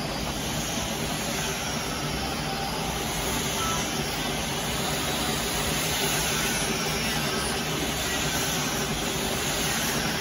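Steady, even hiss and hum of a running conveyor tunnel furnace used to bake dye-sublimation mugs, its wire-mesh belt moving a mug toward the exit.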